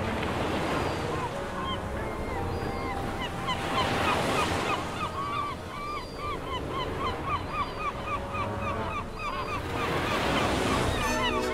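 A South American sea lion colony calling: a dense chorus of many short calls that rise and fall in pitch, over waves breaking on a pebble beach. The surf swells loudest about four seconds in and again near the end.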